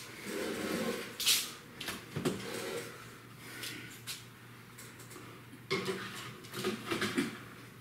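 Clattering and clinking of a foil-lined metal baking sheet as it is carried to the oven and put in on the oven rack, with several sharp knocks and some rustling of the foil.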